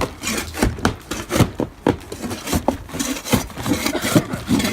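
Wood of a gazebo being pulled apart: irregular cracks, knocks and scraping of wood.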